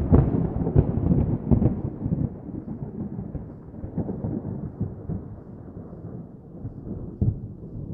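Thunder heard from inside a car: a clap that breaks suddenly and rolls on as a crackling rumble, dying away over several seconds, with one more sharp crack near the end.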